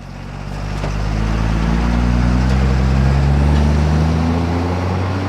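A vehicle engine running with a low, steady drone that grows louder over the first three seconds and then eases off slightly.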